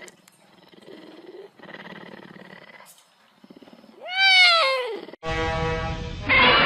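A cat gives one long meow about four seconds in, rising then falling in pitch, after some faint low sounds. Just after it, a steady droning sound starts abruptly and gets louder and rougher near the end.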